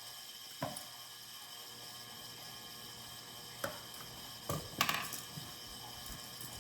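Scissors snipping a few short times, with a small cluster of clicks past the middle, over the steady hiss of a heating and cooling fan.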